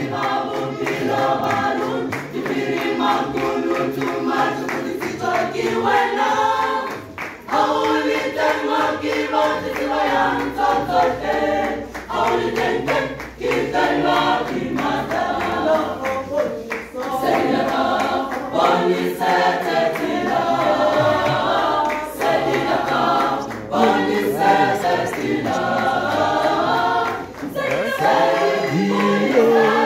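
Mixed church choir of women's and men's voices singing unaccompanied in harmony.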